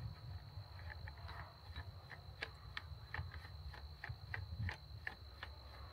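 Suppressor being screwed by hand onto a rifle barrel's muzzle threads: a steady run of light clicks, about two to three a second.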